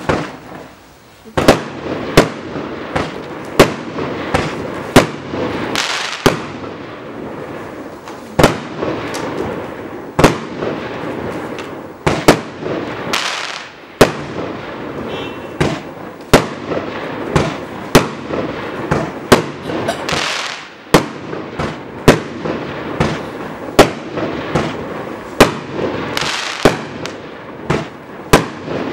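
A 25-shot firework cake (SRPYRO Monster Race) firing: a steady run of sharp launch and burst bangs, more than one a second, with a continuous hiss between them.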